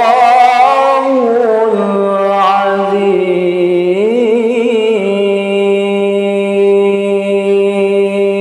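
A man reciting the Quran in melodic tilawah style into a microphone: ornamented, wavering phrases, then a long steady held note from about five seconds in.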